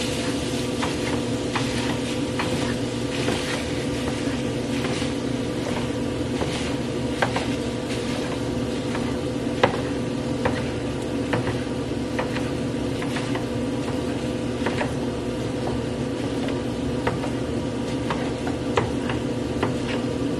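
Ground pork sizzling in a skillet while a spatula breaks it up, with irregular clicks and scrapes of the spatula against the pan. A steady low hum runs underneath.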